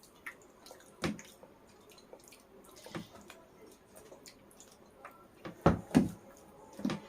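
Wet eating sounds from rice mixed with a thin sour fish curry by hand, with chewing and slurping. A few short knocks come through, the loudest two close together near the end.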